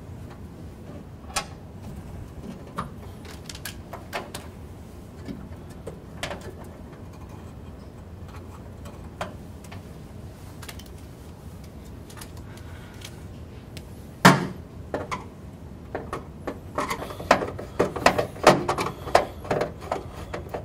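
Handling clicks and knocks from a wire being bent and fitted inside a metal breaker panel: scattered light clicks, a sharp knock about 14 seconds in, then a busy run of clicking and rattling over the last few seconds.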